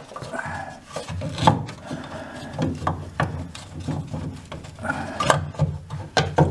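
Irregular knocks, clicks and scraping of a metal valve cover being worked loose and twisted around in a tight space on an air-cooled VW Beetle engine.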